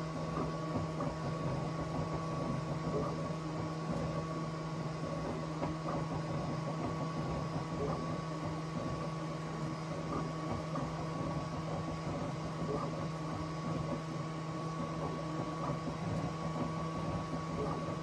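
Bambu Lab X1 Carbon 3D printer running a print while standing on rubber noise-cancelling feet: a steady hum of fans, with the motors whirring and fluttering underneath.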